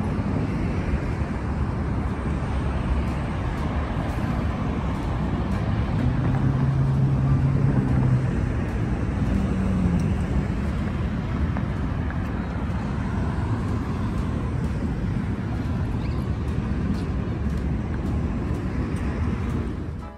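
Steady city traffic noise, a continuous rumble and hiss of passing road vehicles. A vehicle's engine hum stands out for about two seconds near the middle, where the sound is loudest, and a short falling tone follows about ten seconds in.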